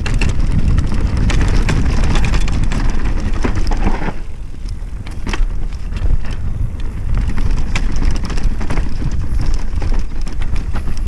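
Mountain bike descending a dirt forest trail: tyres running over dirt, stones and leaves, with wind buffeting the microphone and frequent clicks and rattles from the bike. It is briefly quieter about four seconds in.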